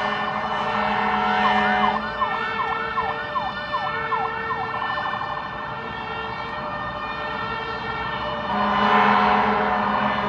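Fire-rescue truck's emergency siren: a steady blaring tone, then a fast yelp of quick repeated pitch sweeps for a few seconds, and the steady blare again near the end.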